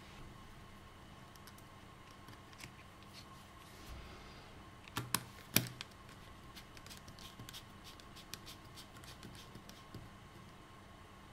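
Quiet handling clicks as a MacBook Pro battery connector board is pressed into place and a small screwdriver drives a silver Torx screw into it. Two sharper clicks come about halfway through, then a run of light ticks as the screw is turned.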